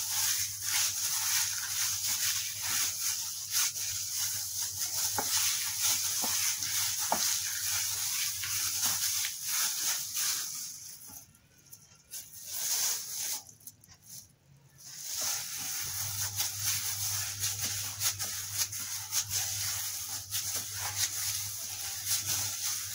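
Plastic-gloved hand kneading soft cookie dough in a glass bowl to work the cocoa powder in: the glove crinkles and rustles with small squishing crackles, over a steady low hum. The sound drops almost away about eleven seconds in and comes back around sixteen seconds.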